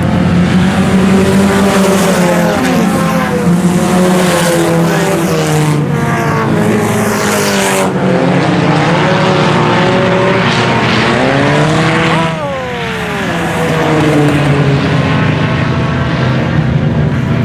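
A pack of IMCA Sport Compact race cars, four-cylinder front-wheel-drive cars, racing around a dirt oval, their engines revving up and down as they go by. About twelve seconds in, one engine drops in pitch as it passes and the noise briefly eases before the pack comes around again.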